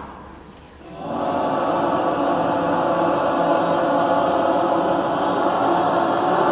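A large group of voices comes in about a second in and holds a sustained chord together, sung as a soundpainting exercise in which one part goes up a whole tone and another goes down.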